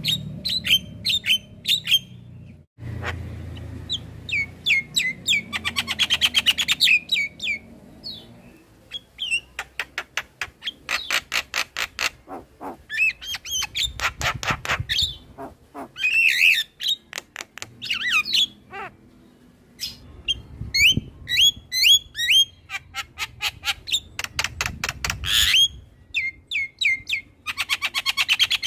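Javan myna singing: runs of short high whistled notes alternating with fast rattling series and squawky calls, in bursts with brief pauses.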